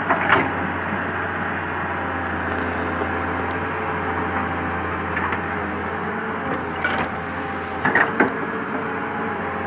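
Komatsu PC200 excavator's diesel engine running steadily while digging, with a few short knocks, two close together about eight seconds in.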